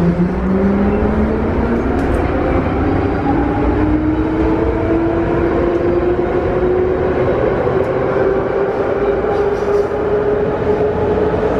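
Traction motors of a Russian-built 81-series metro car (intermediate car type 81-573.1) whining steadily higher in pitch as the train picks up speed, levelling off near the end, over the steady rumble of wheels on the track.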